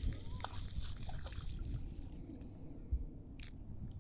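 Faint trickling and dripping water with a few small clicks, over a steady low rumble.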